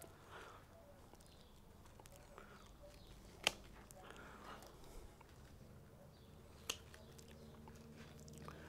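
Hand pruning shears snipping through fine ficus roots: two sharp clicks about three seconds apart, with faint rustling of the root ball between them.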